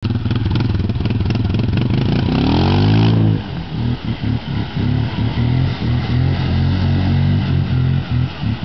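Can-Am Outlander ATV engine under heavy throttle, its pitch climbing over about a second to a peak around three seconds in with a hiss of noise, then dropping suddenly and running on with uneven blips of throttle.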